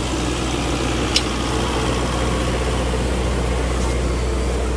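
Locomotive engine idling with a steady low hum while the train stands in the station; one short sharp click about a second in.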